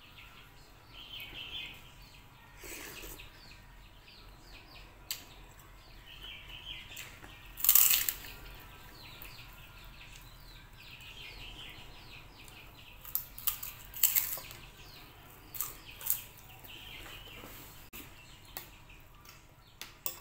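A person eating soto: chewing and crunching on a fried prawn cracker (krupuk), with several sharp clicks of a metal spoon and fork against the ceramic bowl. The loudest click comes about eight seconds in, and more follow in the second half.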